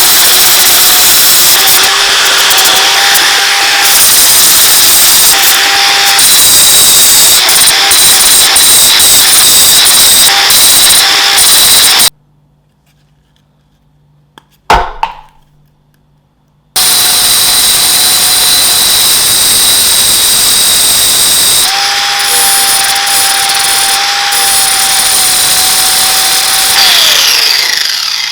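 An electric power tool runs loudly under load, with a steady motor whine. It cuts off abruptly about twelve seconds in, leaving near quiet broken by a single click. It starts again abruptly about five seconds later, and near the end its whine falls as the motor winds down.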